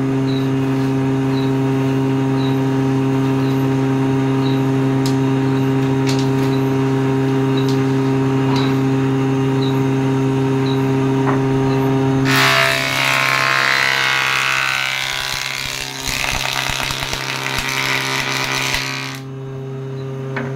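Combination woodworking machine's planer/jointer motor running with a steady hum. About twelve seconds in, a wooden board is fed across the spinning cutter head, giving a loud hissing cut for about seven seconds. The cut stops suddenly, and the motor runs on.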